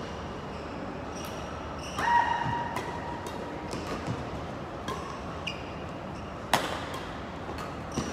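Badminton doubles rally: a run of sharp racket hits on the shuttlecock, the loudest crack about six and a half seconds in. Shoes squeal on the court floor, a long squeal about two seconds in, over the steady noise of a large hall.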